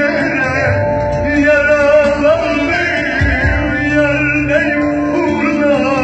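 Live Turkish song: a male singer sings through a microphone and PA over a small band with Middle Eastern-style accompaniment, including a hand drum.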